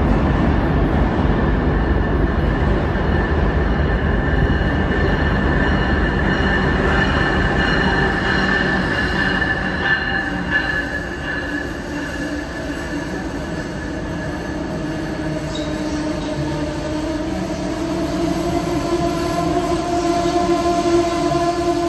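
Amtrak Northeast Regional train, a locomotive and Amfleet coaches, rolling past along the platform with its wheels squealing on the rails. A high steady squeal runs through the first half and gives way to a lower squeal that rises slightly near the end.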